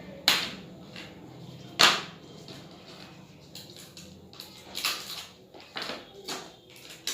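Handling noises from unboxing a phone: two sharp knocks or snaps about a second and a half apart, then several lighter clicks and taps from the box and packaging.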